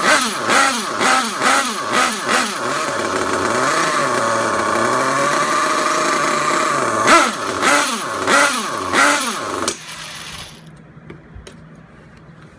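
Dynamite .28 nitro engine of an RC truggy, running very rich, blipped repeatedly so the revs jump and fall away, held steadier for a few seconds, blipped again, then dying suddenly about ten seconds in. The owner suspects a glow plug worn out by the rich, oily fuel.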